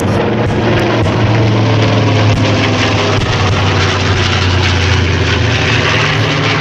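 Radial piston engines of World War II twin-engine bombers (a B-25, a Lockheed C-60 Lodestar and an A-26 Invader) droning overhead on a low formation pass: a steady, loud, deep engine hum.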